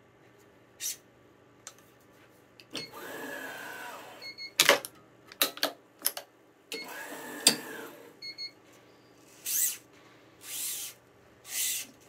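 Yonex ES5 Protech electronic stringing machine at work: its tension head motor whirs twice for about a second as it pulls the string to tension, with sharp clicks of the clamps and string gripper and two short beeps. Near the end come three short rasps, like string being drawn through the racket's strings.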